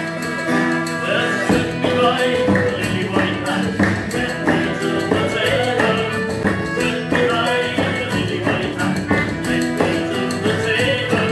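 Celtic folk session music: a metal low whistle carries a held, lilting melody over a strummed steel-string acoustic guitar.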